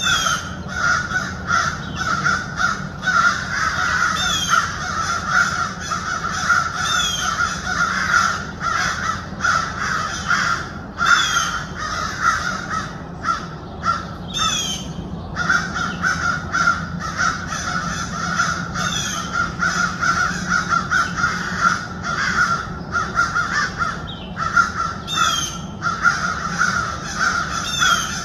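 Harsh animal calls repeated over and over with barely a pause, dropping out briefly in the middle, with short high falling chirps every few seconds.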